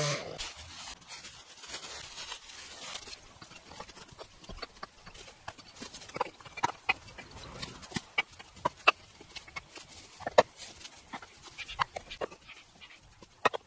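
Red clay bricks knocked and clinked against each other as they are restacked by hand: a string of sharp, irregular clicks beginning about four seconds in.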